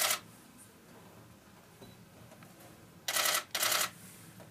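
Camera shutter firing in quick bursts of rapid clicks: one burst ends just at the start, then two short bursts follow a little after three seconds in.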